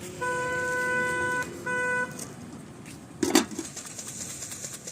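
A vehicle horn honking: one long blast of about a second and a quarter, then a short one. About three seconds in comes a brief loud bump.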